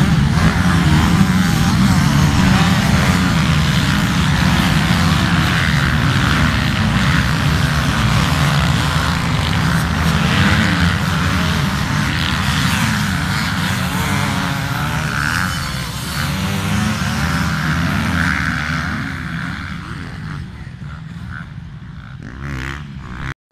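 Motocross bikes racing past on a dirt track, several engines revving at once with the pitch rising and falling as they accelerate and shift. The engine noise fades over the last few seconds and cuts off sharply just before the end.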